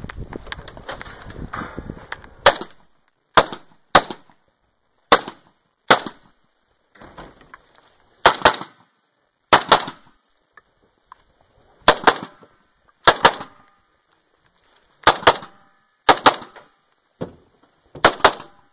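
AKS-74 rifle firing single semi-automatic shots: about five spaced about a second apart, then from about eight seconds in mostly quick pairs, each pair a second or two from the next.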